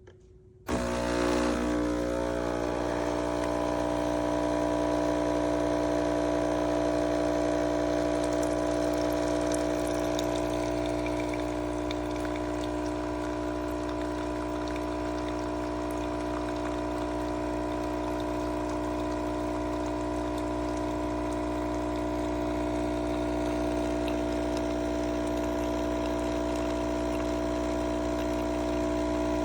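KOTLIE 5-in-1 espresso coffee maker's pump switching on suddenly just after the start and running steadily with a humming drone, pumping water through the machine.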